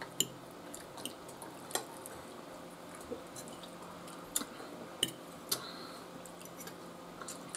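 Metal cutlery clinking and scraping on china plates while eating: a few sharp clicks at irregular intervals.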